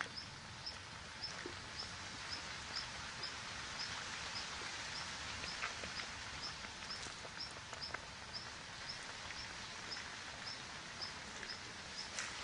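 An animal's short high chirp, repeated evenly about twice a second over a steady hiss of outdoor noise.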